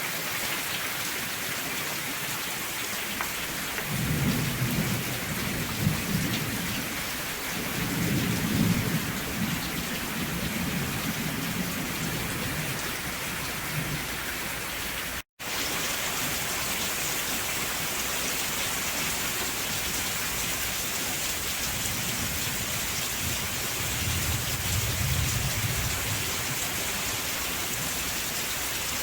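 Steady heavy rain falling, with low thunder rumbling three times: a few seconds in, again for several seconds shortly after, and once more near the end. The sound cuts out for an instant about halfway through.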